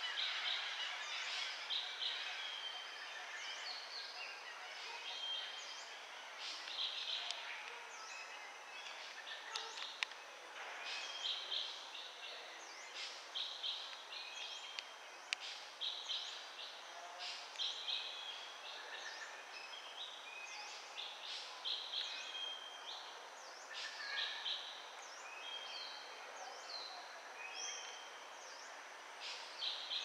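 Small birds chirping in the surrounding trees: many short, high chirps and brief whistles overlapping, over a faint steady background hiss, with a couple of sharp clicks near the middle.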